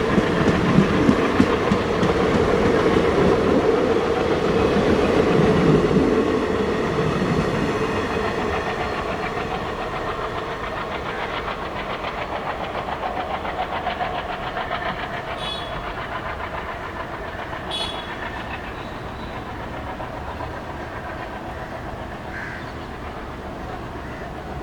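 Diesel-hauled Indian Railways express train rolling past, wheels clicking over the rail joints, the rumble loudest in the first few seconds and then fading steadily as it draws away. Two short high squeaks come about two seconds apart near the middle.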